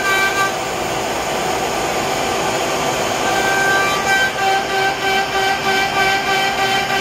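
CNC router running a carving job in wood: the router spindle and dust-collection vacuum run steadily, with a whine of several steady pitches over the cutting noise. The whine thins out about half a second in and returns strongly about four seconds in.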